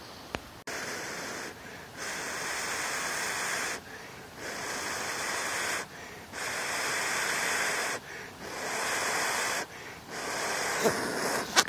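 A person blowing in long breaths onto a smouldering bracket fungus held close to the mouth, keeping its ember glowing. There are six hissing blows, each a second or two long, with short pauses between them.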